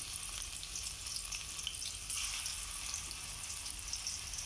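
Spice-marinated chicken pieces frying in well-heated oil in a steel pan: a steady sizzle with scattered small crackles.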